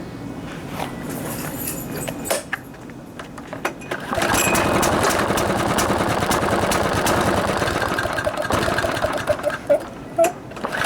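Murray lawnmower engine running unevenly: quieter at first, it picks up sharply about four seconds in, then begins to stumble and sputter near the end. The owner bets the cause is a paper air filter plugged with oil, making it run poorly.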